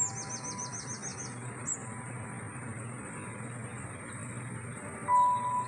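A songbird sings a quick run of about eight high, falling notes, then a single short chirp, over a steady outdoor hiss. About five seconds in, a louder steady tone comes in.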